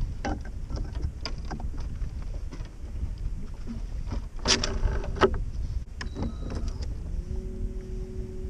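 Wind rumbling on the microphone at the bow of a bass boat, with clicks and a loud rattle of gear being handled about halfway through. About a second before the end a steady electric hum starts, from the bow-mounted trolling motor.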